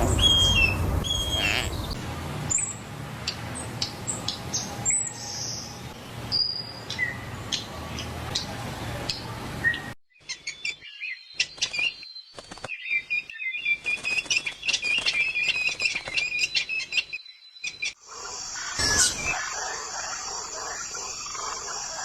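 Birds chirping and calling in short, high notes. The sound changes abruptly about ten seconds in to a denser run of rapid chirping, and changes again near eighteen seconds.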